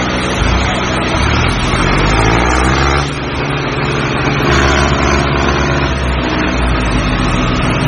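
A motor vehicle engine running, revving up and then dropping back suddenly about three seconds in, before running steadily on.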